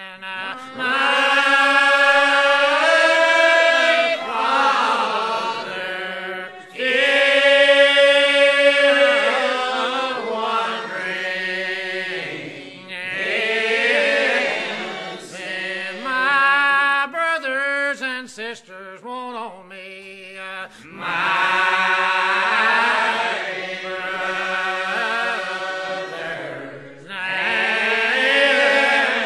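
Unaccompanied hymn singing in slow phrases of long held notes, with short breaks between phrases.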